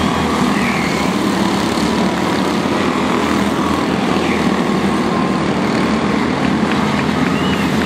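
Several quarter midget race cars with small Honda engines racing together on a short oval, their engines blending into one steady, continuous drone.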